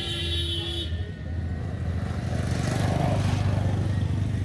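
A steady low rumble runs throughout, with a short spell of water splashing and dripping about halfway through as a wet cast net is hauled out of a pond by its rope.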